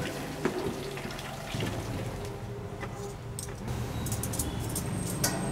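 Hot oil bubbling and crackling as duck pieces deep-fry in a wok, with a few light clicks near the end.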